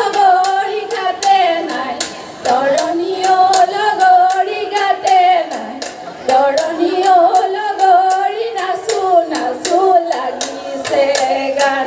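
Women's voices singing an Assamese Jeng Bihu song in unison, in long phrases with short breaks for breath, over a steady beat of sharp claps about three or four a second.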